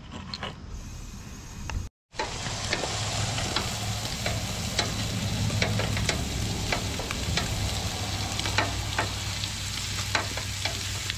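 Sliced sausage sizzling on a camp-stove griddle, a steady hiss with frequent sharp pops and clicks as metal tongs turn the slices. It begins about two seconds in.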